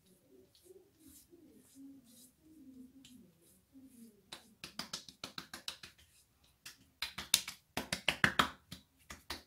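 A hand patting and slapping aftershave splash onto the face and neck: a rapid run of sharp slaps on wet skin, starting about four seconds in and going on to the end.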